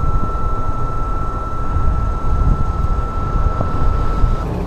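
Wind buffeting the action camera's microphone on a moving electric scooter at about 39 km/h, a dense unsteady low rumble. A thin steady high whine runs under it and stops shortly before the end.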